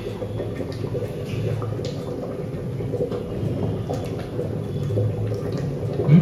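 Mutton gravy, with water just added, bubbling steadily in an open pressure cooker on the stove: a rough, low churning with a few faint clicks.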